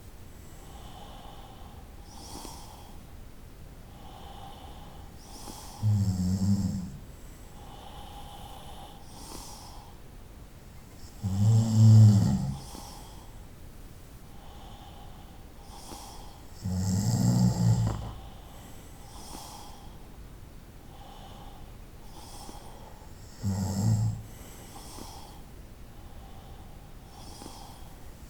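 A person snoring: four loud, low rattling snores about six seconds apart, each lasting about a second.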